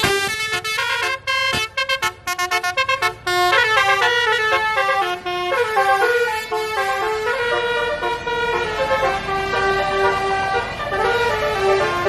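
A coach's basuri 'telolet' multi-tone horn playing a melody: rapid short toots for the first three seconds or so, then longer held notes stepping up and down in pitch.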